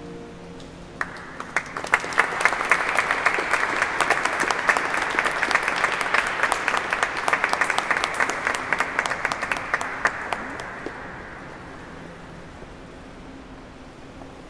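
The last notes of a chamber ensemble die away, then an audience applauds: clapping starts about a second in, holds for about nine seconds and fades out near the end.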